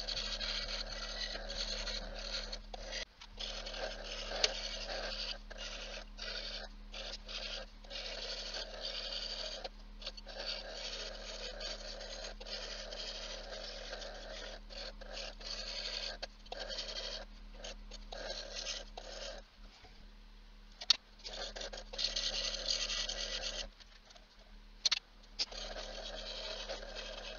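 Delta scroll saw cutting fretwork in African padauk: a raspy blade-cutting noise over the saw's steady hum, breaking off and resuming many times.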